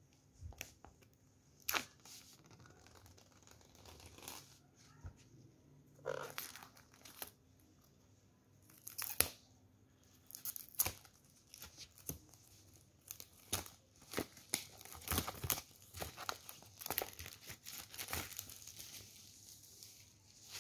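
Plastic shrink-wrap being slit and torn off a cardboard box, crackling and crinkling in irregular short bursts that come thicker in the second half.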